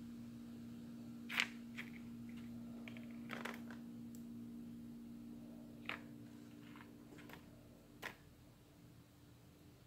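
Sharp little clicks and taps, about half a dozen spread out, as alligator clips and small plastic model parts are handled, over a steady low hum that drops away near the end.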